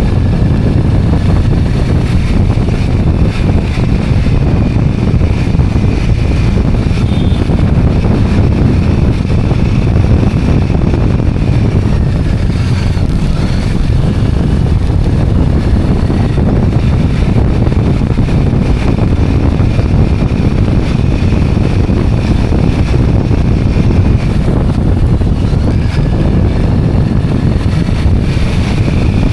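Steady wind blasting the microphone while riding a motorcycle or scooter, with the engine and road noise as a continuous low rumble underneath.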